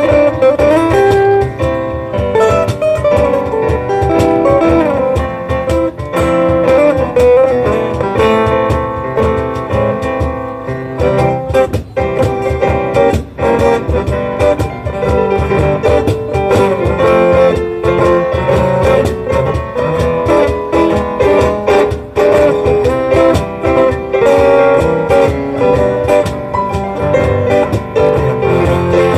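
A small jazz group plays an instrumental passage live: acoustic guitar with keyboard piano, and percussive strikes that fit a cajón.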